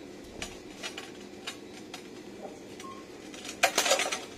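Steady supermarket hum with a few light clicks and knocks, then a short burst of rattling clatter about three and a half seconds in.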